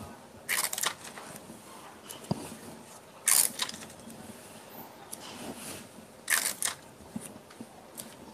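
Sheets of pattern-drafting paper rustling as hands handle them, in three short bursts about three seconds apart.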